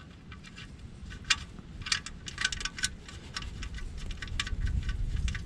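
Light, irregular metallic clicks and clinks as the oil drain bolt is handled and threaded back into the oil pan. A low rumble builds near the end.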